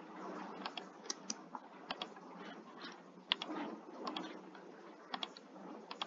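Computer mouse clicking irregularly, a dozen or so sharp clicks with several in quick pairs, over a faint steady hiss.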